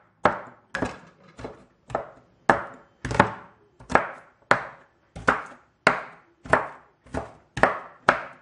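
Big kitchen knife chopping an onion into small pieces on a cutting board: a steady run of sharp chops, a little under two a second.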